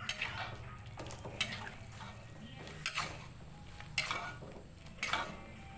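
Metal spatula stirring and scraping a thin white flour mixture in an aluminium wok, with about five strokes roughly a second apart.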